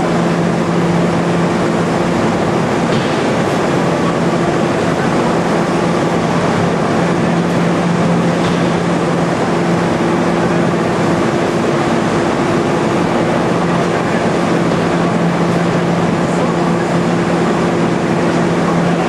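Processing-plant machinery, pumps and motors, running with a steady hum over a constant rushing noise.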